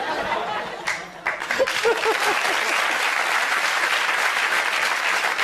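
Studio audience applauding, the clapping swelling about a second in and then holding steady.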